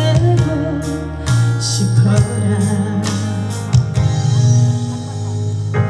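Slow trot ballad played live: a backing band with guitar and a steady bass line, with a woman's singing voice.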